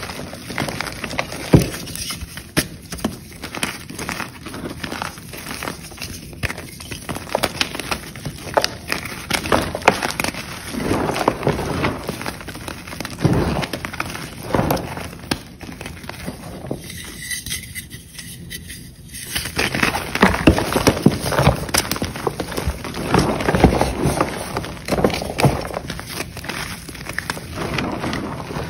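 Chalk being crushed and crumbled: dense crunching and crackling that swells in waves, dropping away briefly about two-thirds of the way through.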